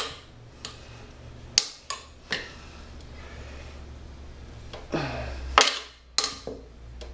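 Metal tire levers clinking and knocking against a motorcycle wheel rim as the tire bead is pried on: a handful of separate sharp knocks, the loudest about five and a half seconds in, over a steady low hum.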